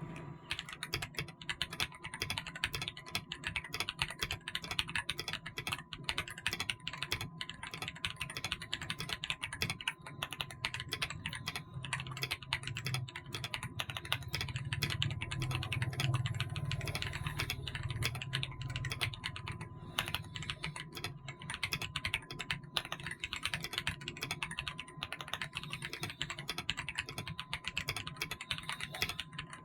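Ajazz AK820 mechanical keyboard with Moon switches being typed on continuously, a fast, dense run of keystrokes.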